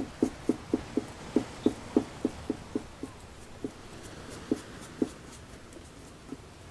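Acrylic paint dripping from a pouring cup onto the canvas: a run of soft, quick drips, about four a second, that slow and thin out near the end as the pour runs dry.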